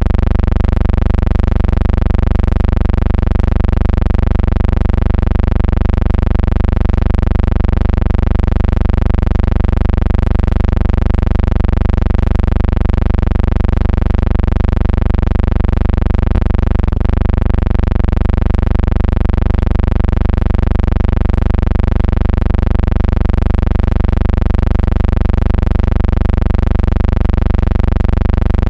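A loud, steady droning hum with many overtones, wavering slightly and never changing pitch or level, with a brief glitch about two-thirds of the way through.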